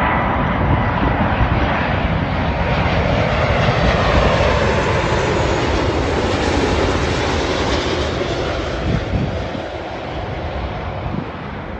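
Airbus A330 twin-engine airliner passing low on final approach with its landing gear down. The roar of the jet engines builds to a peak about four seconds in, then slowly fades as the plane moves away, with a faint whine dropping in pitch.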